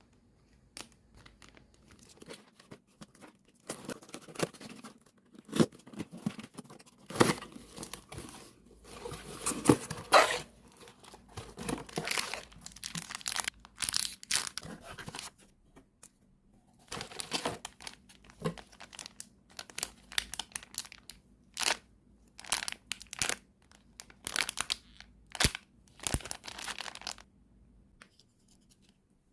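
Packaging being torn open and crinkled by hand while unboxing squishies: irregular crackling and tearing, broken by short pauses.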